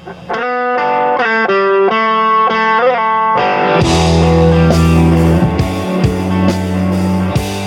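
Rock band playing a song intro: a lone guitar plays a melody with string bends, then bass and drums come in about halfway through and the full band plays on.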